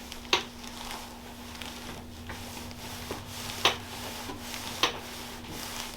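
Hands rubbing and working over a patient's body on a treatment table, a steady soft rubbing with three sharp clicks through it and a faint steady hum behind.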